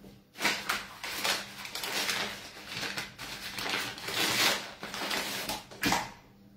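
A bag of flour rustling and crackling as it is picked up and opened, in a run of dense crackles, with a sharp knock near the end.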